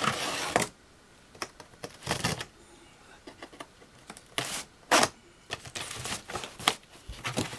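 Cardboard box and packaging being handled as parts are unpacked: irregular rustles and scrapes with a few sharp knocks, with short quiet gaps between.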